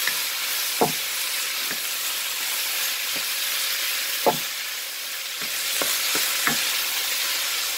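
Diced pork and onion sizzling in hot oil in a nonstick pan, stirred with a wooden spatula that knocks and scrapes against the pan every second or so, most sharply about a second in and just past four seconds.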